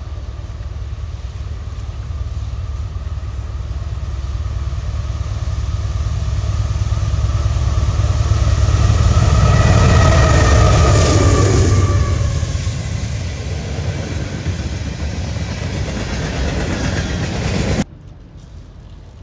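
Union Pacific freight train's diesel locomotives approaching and passing close by. The engine rumble grows to its loudest about halfway through, with a whine that drops in pitch as the units go by, then the train carries on rolling. The sound cuts off suddenly near the end.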